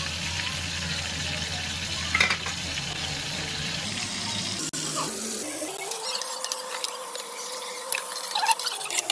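Butter sizzling steadily in a metal kadhai on a gas flame, with whole spices frying in it for a tadka. A few light clinks of a steel ladle against the pan near the end.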